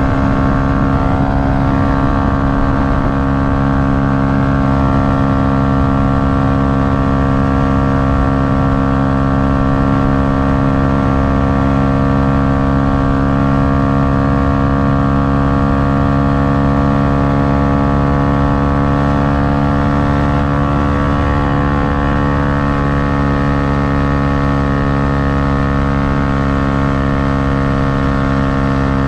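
Yamaha MT-125's 125 cc single-cylinder four-stroke engine running under load at a steady, nearly unchanging pitch while the bike is ridden at speed.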